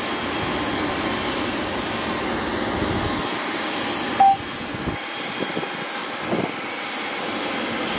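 Airbus A320 jet engines at taxi idle: a steady, even drone. About four seconds in, a short, loud beep cuts through.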